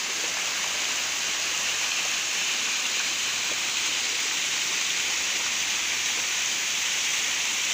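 Waterfall water spilling over concrete weir steps and splashing into a pool: a steady, hissy rush of falling water.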